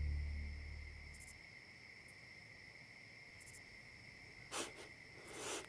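Crickets chirring steadily, while low background music fades away in the first second. Near the end, two sobbing breaths.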